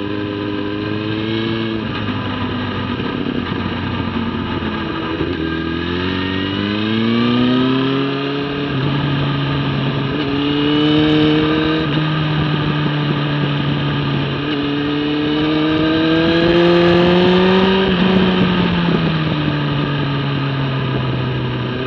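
Sport motorcycle engine at racing speed, heard from the bike itself, with wind rush. The engine pitch climbs hard from about six to eight seconds in, steps at an upshift, holds, climbs again, then falls away near the end as the bike slows.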